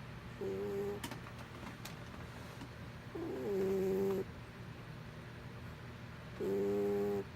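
Domestic cat snoring in its sleep: three pitched snores about three seconds apart, each under a second long.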